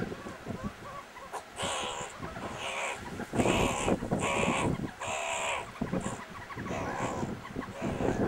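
Meerkats play-fighting, giving a quick run of about six harsh, rasping calls from about a second and a half in, with a few fainter calls near the end.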